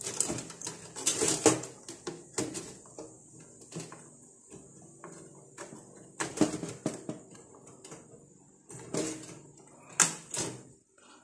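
Irregular clicks, knocks and rattles of hands working inside a desktop computer case, seating a RAM stick and plugging in connectors, with a few sharper knocks spread through.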